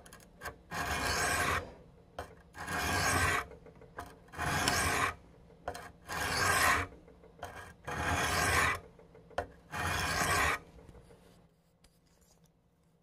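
Steel knife blade drawn edge-first across the coarse diamond plate of an AccuSharp tri-stone sharpener, six long gritty strokes about two seconds apart, stopping near the end. These are the last few passes to even out the bevel once the burr has formed.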